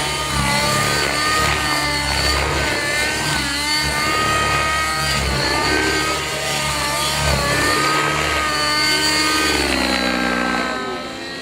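Radio-controlled helicopter in flight, its motor and rotor whine rising and falling in pitch over and over as it throws the model around. It gets quieter about ten and a half seconds in.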